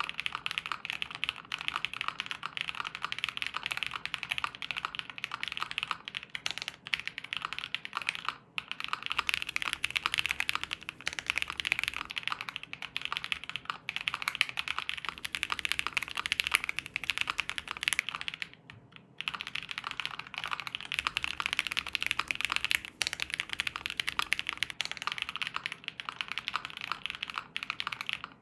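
Continuous typing on an ai03 Vega custom mechanical keyboard with lubed Tecsee Ice Candy switches and GMK double-shot ABS keycaps: a dense, rapid stream of key clacks, with short pauses about eight seconds in and again near nineteen seconds.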